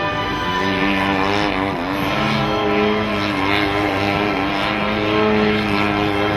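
Radio-controlled aerobatic model plane's engine and propeller, rising and falling in pitch as the throttle is worked during the first couple of seconds, then holding a fairly steady note.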